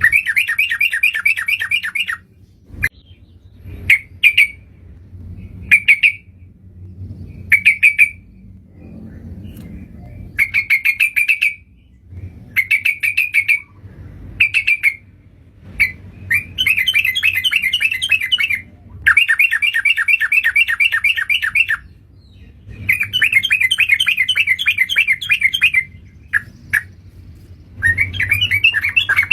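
Yellow-vented bulbul (cucak trucukan) calls played as a bird-lure recording. Short bubbly phrases come every second or two at first, then give way to longer fast chattering runs of two to three seconds each.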